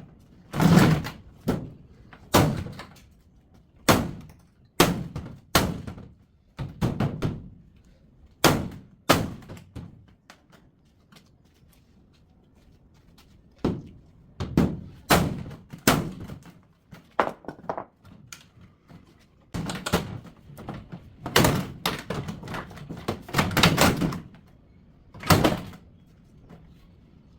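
Irregular knocks and clunks of an LG top-loading washing machine's casing and parts being struck and pried apart for scrap, with a quieter pause about ten seconds in.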